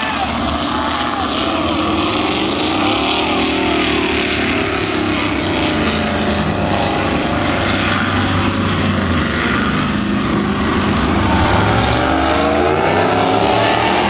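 High-powered offshore racing boat engines running hard as the boats accelerate past one after another. The engine pitch climbs in the first few seconds and again near the end as further boats speed up, over a steady rush of water and wind.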